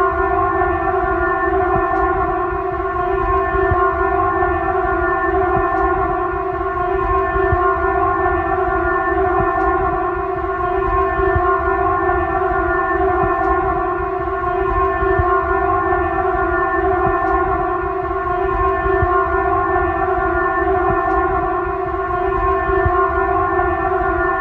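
Emergency alert alarm sounding one steady siren tone at a single pitch, held without a break.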